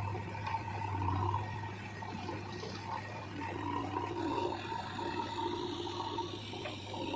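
Diesel engine of a backhoe loader running with a steady low drone, its sound rising and falling slightly as it works.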